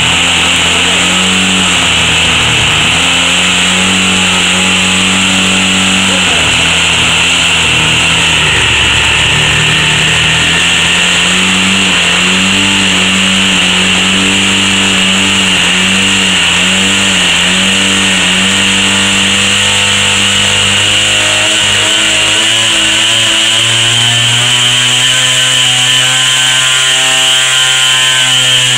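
Webra Speed 61 model glow engine running with a tuned pipe: a loud, high-pitched two-stroke buzz whose pitch wavers. About three-quarters of the way through it drops to a lower, steadier speed, and near the end it begins to pick up again.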